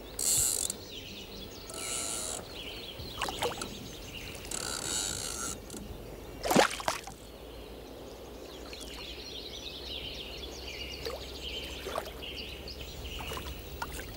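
Spinning reel's drag ratcheting in several short bursts as a hooked bream pulls line, the drag set light for the fight. One sudden loud swish comes about six and a half seconds in.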